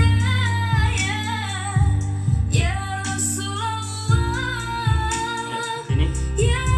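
A song with a female singer and strong bass notes, played through a homemade 300-watt power amplifier into a boxed ACR Pro speaker.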